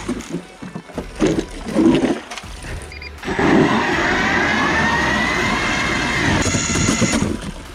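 Battery-powered StrikeMaster electric ice auger drilling into lake ice. There are irregular crunches and knocks for the first few seconds. About three seconds in, the motor runs steadily with a whine that rises slightly, and it stops shortly before the end.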